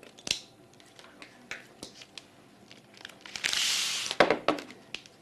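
Light clicks and knocks of plastic being handled, with one brief crinkle of a plastic infusion bag about three and a half seconds in.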